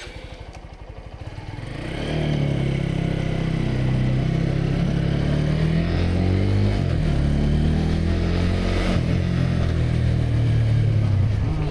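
Motorcycle engine running at a low idle, then pulling away about two seconds in and getting louder. Its note dips and climbs again about halfway, then it runs steadily under way.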